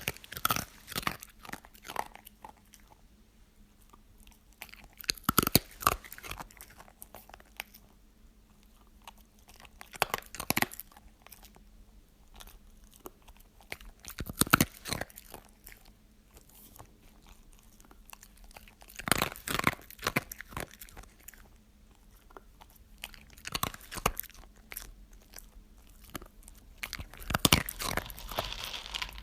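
Crunchy food being bitten and chewed: a loud crunching bite about every four to five seconds, with quieter chewing crackle between.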